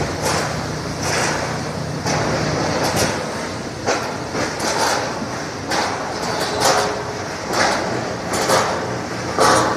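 Carrot washing machine running: a steady motor hum under rushing, rattling surges that come and go about once a second as the carrots are churned and washed.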